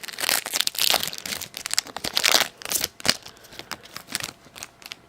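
A hockey card pack wrapper being torn open and crinkled, with dense crackling for about three seconds, then lighter scattered clicks as the cards are handled.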